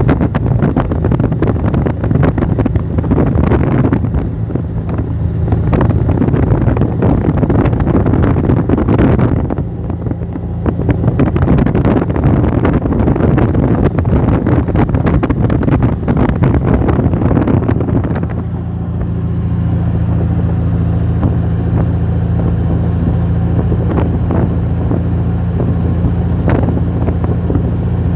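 Off-road vehicle engine running at a steady drone while driving, with wind buffeting the microphone and frequent knocks and rattles. About eighteen seconds in, the rattling and wind noise ease and the engine drone becomes smoother and steadier.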